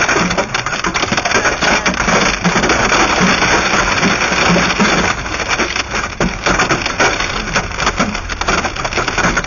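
Hail pelting a car's roof and windshield, heard from inside the car: a loud, dense clatter of countless small hits that never lets up.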